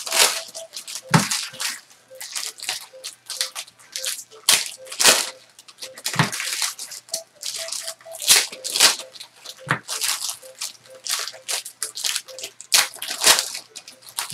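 Trading-card boxes and packs being ripped open and handled: rapid, irregular tearing, crinkling and rustling of wrappers and cardboard.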